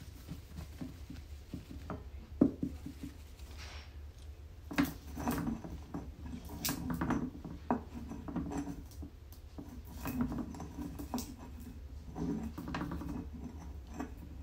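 Stone pestle crushing and grinding cocoa beans in a granite mortar. A sharp knock comes about two and a half seconds in, then irregular clicks and gritty scraping from about five seconds on.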